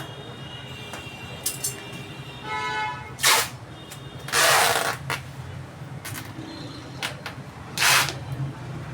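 Parcel-packing noises: three loud rasping bursts, the longest about a second in the middle, over a steady low hum.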